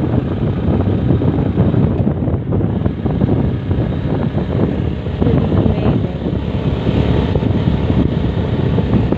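Wind buffeting the microphone over the rumble of a moving vehicle on the road, loud and unsteady throughout.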